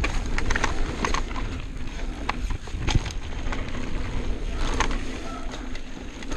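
Downhill mountain bike riding fast down a dirt trail: wind buffeting the camera microphone as a steady low rumble, tyres running over dirt, and frequent sharp clicks and rattles from the bike over bumps.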